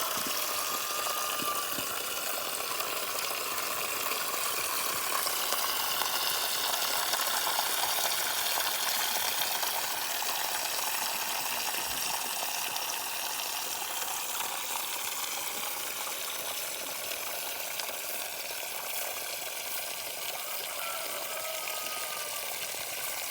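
Water running in a steady rushing stream, with faint tones drifting slowly up and down in pitch through it.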